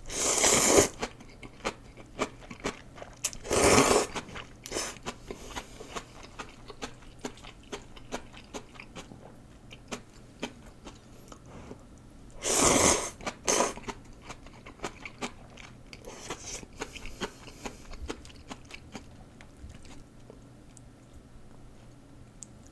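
Close-miked eating of Vietnamese pho rice noodles: four loud slurps of noodles, one at the start, one about four seconds in and two about thirteen seconds in. Between them runs steady wet chewing with many small mouth clicks.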